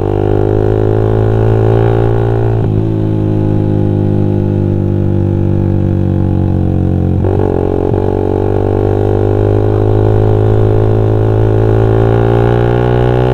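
Suzuki Satria FU 150's single-cylinder four-stroke engine running through a Pro Liner aftermarket exhaust while riding, a steady droning note. The note breaks briefly twice, about three seconds in and again about seven seconds in, as on a gear change or a throttle lift, then settles back to the drone.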